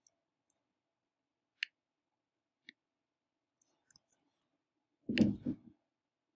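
Computer mouse clicking: a dozen or so scattered single clicks and short runs of clicks while highlight boxes are dragged and resized on screen. About five seconds in, a louder, muffled low noise lasts about half a second.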